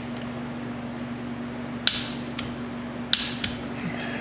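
Torque wrench on a Polaris Sportsman 700 cylinder head bolt clicking twice, a sharp metallic click about two seconds in and another about a second later, the sign that the bolt has reached its 35 ft-lb torque setting. A steady low hum runs underneath.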